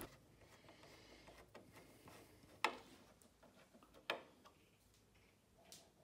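Near silence with two short metallic clicks about a second and a half apart, and a few fainter ticks: a screwdriver working the screws in the steel hinge adjustment plate of a built-in fridge door.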